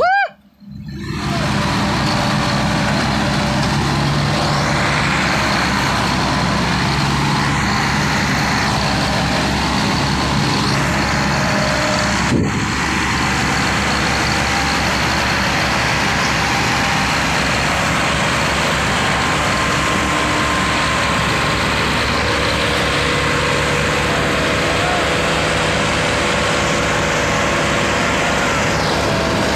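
Tractor diesel engines running steadily under heavy load while hauling an overloaded sugarcane trailer. The sound comes in about a second in, after a short dip.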